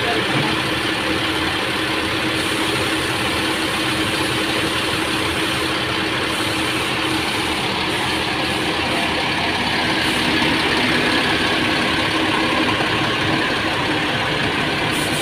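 Rear-mounted diesel engine of a Mercedes-Benz OH 1626 bus idling steadily, with a constant hum.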